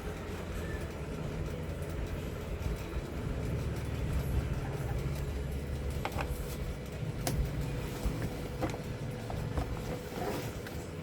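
Steady low background rumble with a few faint, sharp clicks and taps scattered through it.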